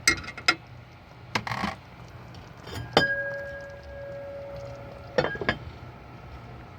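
Metal cookware clinking around a skillet: several light knocks and clicks, then about three seconds in a sharp clang that rings on for over a second, and a few more clinks later on.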